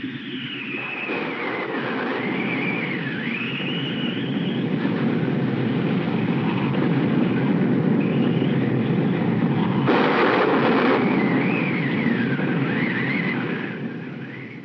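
Storm wind and heavy rain, rising to a steady roar, with the wind whistling in a thin, wavering tone. A sudden louder burst comes about ten seconds in, and the storm fades away near the end.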